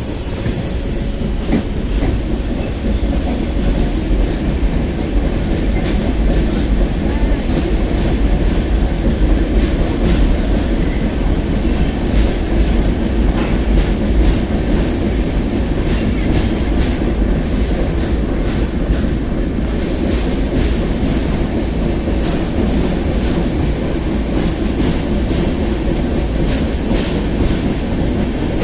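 Train running along the track: a steady heavy rumble with wheels clicking over the rail joints, the clicks coming thicker near the end.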